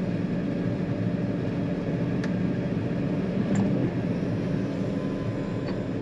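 John Deere 9500 combine's diesel engine running steadily at road speed, heard from inside the cab, with a couple of faint ticks.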